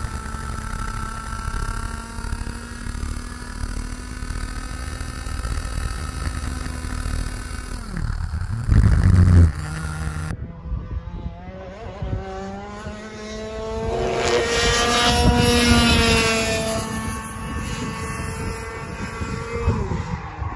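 IAME X30 Senior two-stroke kart engine running at speed, heard from on board, with a loud low rumble lasting about a second just before halfway. Then a kart's two-stroke engine is heard from trackside, its pitch rising as it swells louder, then falling away as it passes.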